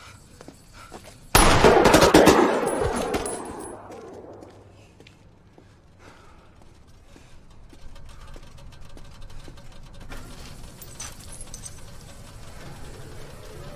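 A long burst of automatic fire from a Patchett submachine gun, starting about a second in, running for about two seconds and then echoing away.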